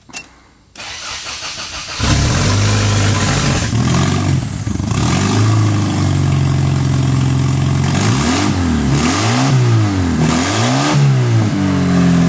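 A car engine is cranked and catches about two seconds in. It then runs with its revs rising and falling repeatedly, blipped through a remote-controlled throttle, most plainly in the last four seconds.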